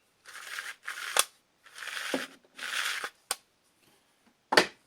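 Hands working on the disassembled leaf blower's parts: four short scraping strokes about a second apart, with a few sharp clicks and a louder clack near the end.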